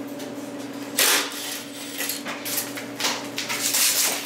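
Knocks and rustling from hands working in a scooter's seat compartment and on its plastic bodywork, over the steady hum of a clothes dryer running.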